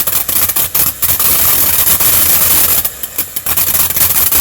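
A firework burning with a loud, steady hiss, broken by a few sharp cracks in the first second and a brief dip about three seconds in.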